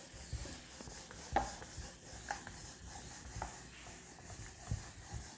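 Faint rubbing of a whiteboard being wiped clean by hand, with a few soft knocks of the eraser against the board.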